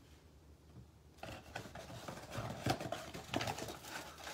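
Cardboard blaster box of trading cards and its foil packs being handled on a table: scattered soft taps, knocks and rustles, starting about a second in.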